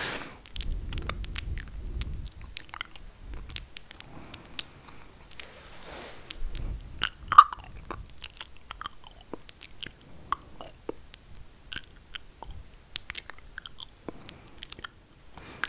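Close-miked ASMR mouth sounds: a quick, irregular run of sharp wet clicks and smacks, with two short low rumbles, one about a second in and one around six seconds.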